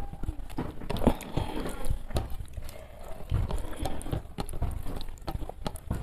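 Close-up eating sounds: chewing with wet mouth clicks and smacks, and fingers squishing and mixing rice on a plate, as irregular short clicks.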